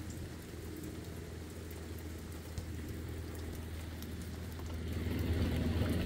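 An engine idling with a steady low hum, growing a little louder near the end, with faint scattered ticks over it.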